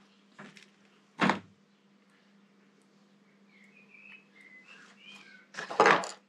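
Hand work on a motorcycle front brake master cylinder and lever assembly: small metal parts knocking and clicking, one sharp knock about a second in and a louder clatter near the end. Between them come a few faint high chirps, over a steady low hum.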